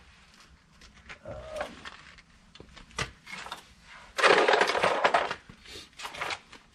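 Hand tools and metal parts being handled during front brake caliper work: scattered clicks and knocks, with one loud, rough scraping rattle lasting about a second, a little past the middle.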